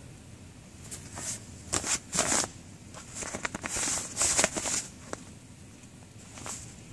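Rustling as a hand strokes a long-haired cat and the bedding under it, close to the phone's microphone: a run of short, uneven rustles with a few light clicks, loudest around the middle.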